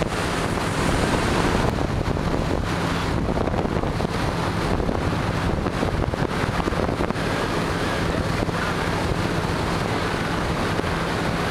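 Wind buffeting the microphone on a moving motorboat, over the steady low hum of the boat's engine.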